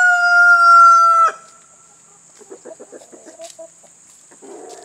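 A young rooster crowing: the crow's long final note holds steady and cuts off sharply about a second in. Soft hen clucking follows.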